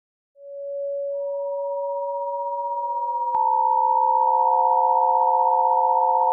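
Synthesized pure sine tones held steady and stacking into a sustained chord. One tone fades in near the start, a higher one joins about a second in, and more join around three and four seconds in. A faint click about three seconds in coincides with the higher tone stepping slightly down in pitch.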